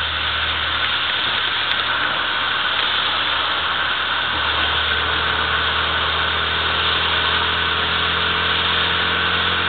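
Inside a 1998 Mini Cooper driving at speed on a wet track: its 1.3-litre A-series four-cylinder engine runs under a steady hiss of tyres on wet tarmac and spray. The engine note settles into a steady hum about halfway through.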